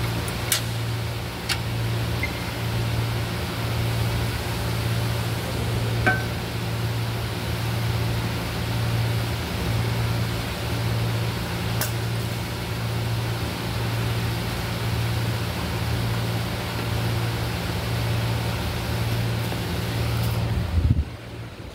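A steady low machine hum that swells about once a second, with a few sharp metal clinks of tools at work on the underside of the car. Near the end a thump as the phone is handled.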